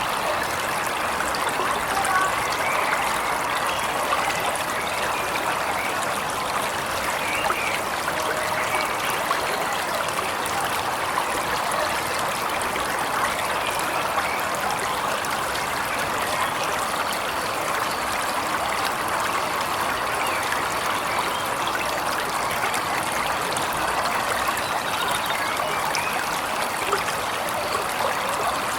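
Waterfall: the steady, unbroken rush and splash of falling water.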